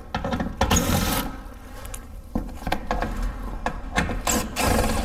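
Cordless 18-volt power tool spinning out 8 mm skid-plate bolts in short bursts, one in the first second and another near the end, with a few light clicks and knocks in between.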